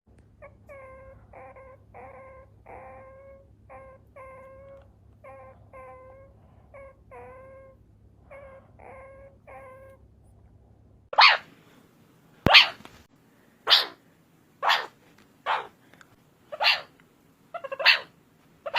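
Meerkat calls: a run of short, pitched chirping calls about two a second, then, about eleven seconds in, a switch to much louder, short, noisy calls about once a second.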